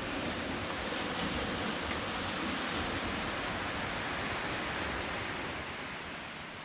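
Gentle surf washing onto a beach: a steady rush of small waves that eases slightly near the end.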